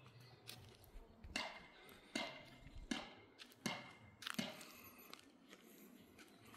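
Faint footsteps of a person walking slowly, about one step every three-quarters of a second.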